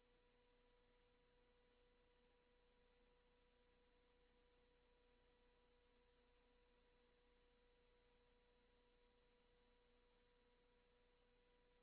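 Near silence: a faint, steady electrical hum and thin high whine from the line, with nothing else happening.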